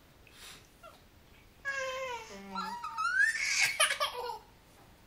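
A toddler vocalizing in two bursts, babbling and laughing: a falling, wavering cry, then a louder squeal that rises in pitch about three seconds in.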